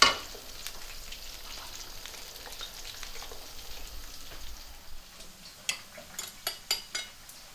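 Oil sizzling steadily as chopped onion fries in a wok and cauliflower fries in a second pan. A sharp knock at the start, and a quick run of sharp clicks near the end.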